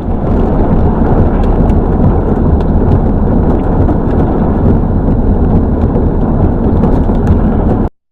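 Severe thunderstorm: loud, steady wind buffeting the microphone with a deep rumble, and rain driving down with scattered sharp ticks of impacts. It cuts off suddenly near the end.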